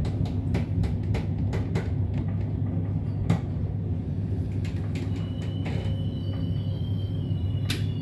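Intercity train heard from inside the coach: a steady low rumble of the running gear with regular clicks from the wheels over the track. From about five seconds in, thin high squealing tones join in as the train brakes into a station, and there is one sharp click near the end.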